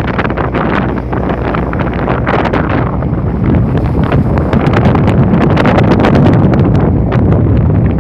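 Strong wind buffeting the microphone aboard a boat in big waves, a loud, continuous rushing rumble with rapid irregular gusts.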